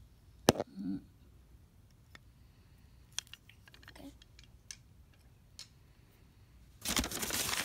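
Small clicks and knocks of wooden toy trains being handled, with one sharp click about half a second in and a few faint ones after. About seven seconds in, loud rustling and crinkling of crumpled packing paper begins as hands dig through the box.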